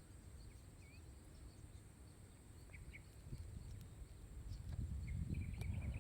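Faint outdoor ambience: a steady high insect drone with scattered faint bird chirps, over a low rumble that grows louder in the second half.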